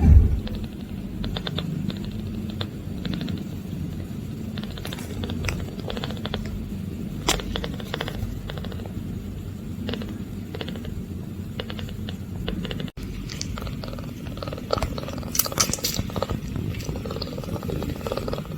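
Cat purring steadily, a low pulsing hum, with scattered small clicks and rustles over it and a brief cut about 13 seconds in.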